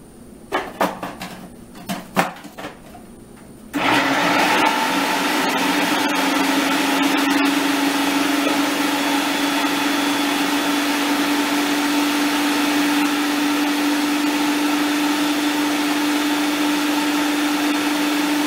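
Countertop food processor puréeing ripe bananas: a few clicks and knocks as the lid is fitted and locked, then about four seconds in the motor starts and runs steadily with an even hum.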